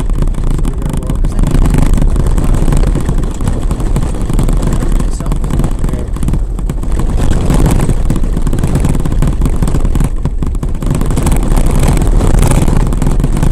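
Vehicle driving over a corrugated dirt track covered in sand: a loud, steady road rumble and rattle from the corrugations.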